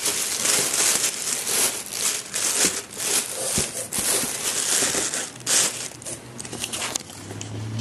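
Clear plastic wrapping crinkling and rustling in uneven surges as it is pulled back from a boxed dumbbell.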